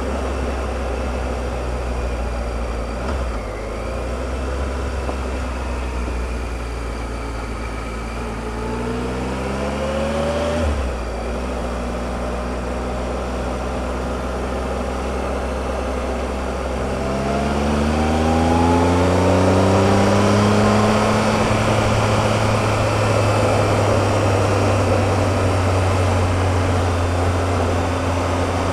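Triumph Explorer motorcycle's three-cylinder engine under way over a steady rush of wind noise. The engine note climbs as it accelerates about a third of the way in, drops sharply at a gear change, then climbs again a little past halfway and holds at a louder, steady cruise.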